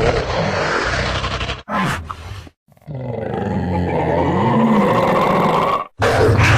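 Dinosaur sound effect for an Irritator, a spinosaurid: four separate calls split by short silences. First a call of about two seconds, then a short one, then a longer call of about three seconds whose low pitch wavers up and down, and another short call near the end.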